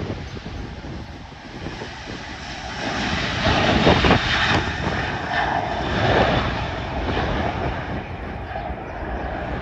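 Jet airliner's engines passing, swelling to their loudest about four seconds in and then staying loud.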